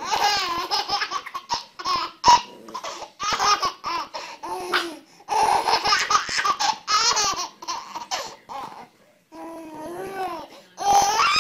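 A small child laughing hard in repeated runs of high-pitched giggles, with brief pauses between them.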